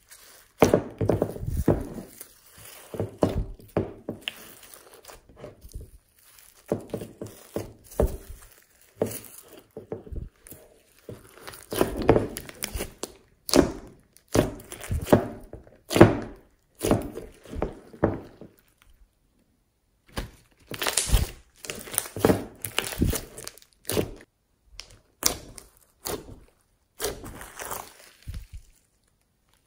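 Hands kneading, pressing and stretching glossy slime mixed with foam beads, giving irregular squishes and soft thunks, with a short pause about two-thirds of the way through.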